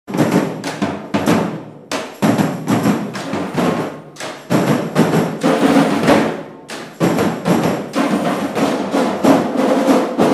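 A group of drums and percussion played together in a drum circle, many strokes a second, dipping briefly three times before running on without a break.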